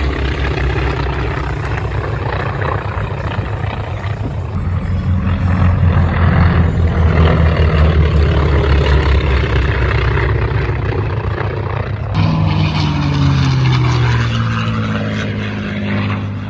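Piston-engine propeller warbirds flying over the crowd with a steady engine drone that swells midway. About three quarters of the way through, a plane passes close and its engine pitch slides down as it goes by.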